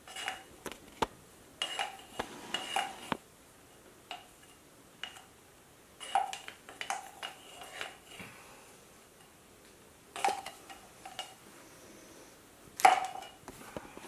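Metal painting spatula clinking in irregular clusters of light taps against the paint bottle, each tap with a short metallic ring; the loudest clink comes near the end.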